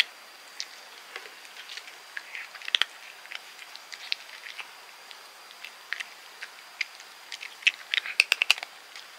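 Tabby cat crunching small dry snack treats from a hand: irregular crisp crunching clicks that come faster in a cluster about eight seconds in.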